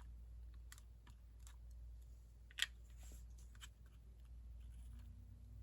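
Quiet handling of paper and craft tools on a work table: scattered light clicks and taps, with one sharper click about two and a half seconds in, over a low steady hum.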